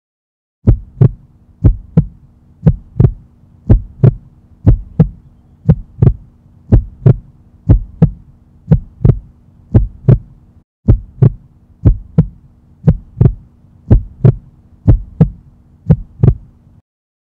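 Heartbeat sound effect: paired lub-dub thumps about once a second over a low steady hum. It drops out for a moment a little past halfway and stops shortly before the end.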